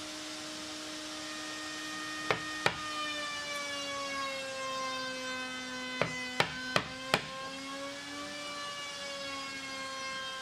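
Sharp knocks of a chisel being struck as it chops out a small pocket in a walnut rail: two strikes about two seconds in and a quick run of four around six to seven seconds. Under them runs a steady held tone that slowly drifts down and back up in pitch.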